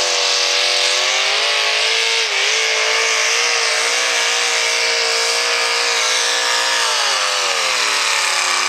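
V8 engine of a hot rod pulling tractor at high revs, dragging the weight-transfer sled. The pitch holds steady with a brief dip about two seconds in, then falls near the end as the revs drop.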